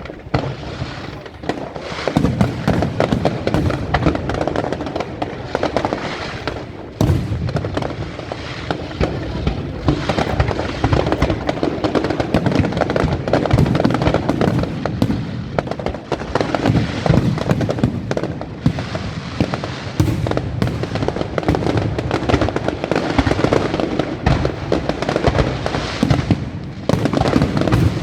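Aerial fireworks display: a dense, continuous barrage of shell bursts and crackling, with deep booms running under it throughout.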